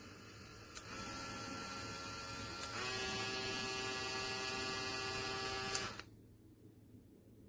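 HARDELL 3.7 V cordless mini rotary tool motor running with a steady whine. It steps up about a second in, then speeds up to a higher, louder pitch just under three seconds in, as if switched to a faster speed, and stops about six seconds in.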